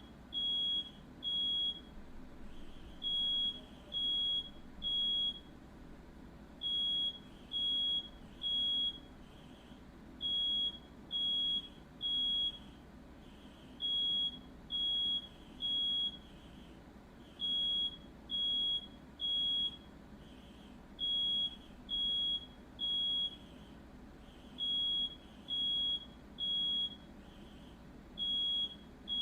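Smoke alarm sounding its three-beep evacuation pattern: three loud, high-pitched beeps, a pause, then three more, repeating steadily, the sign that it has detected smoke.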